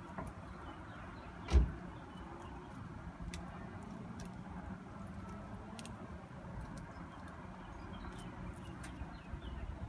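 Dry aerial roots and twine being handled and tied, with faint scattered clicks and one loud knock about one and a half seconds in, over a steady low rumble of distant traffic.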